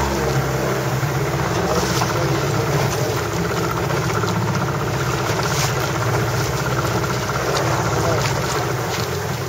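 A boat's engine running steadily, with wind noise over it.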